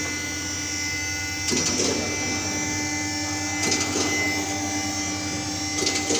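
Steady mechanical hum with a high whine, broken by a few short metallic knocks and clanks of tools on the car's underside.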